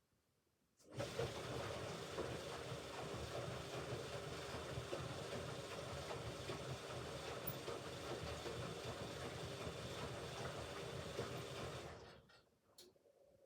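Hoover Ecologic Computer Washer 1300 washing machine running its motor for about eleven seconds during a rinse, starting sharply about a second in and stopping near the end. A single click follows.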